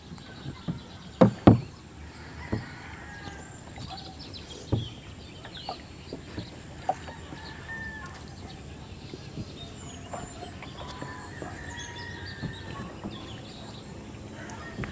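Chickens clucking and a rooster crowing in the background. A few sharp knocks of wood on the small outrigger boat come in the first seconds, the loudest about a second and a half in, with water dripping from a netful of azolla.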